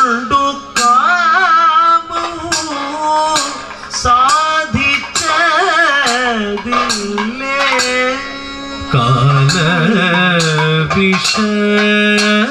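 Kathakali vocal music (pattu): male singers sing a Carnatic-style melody with sliding, wavering ornaments, over sharp percussion strokes. A second, lower voice comes in about nine seconds in.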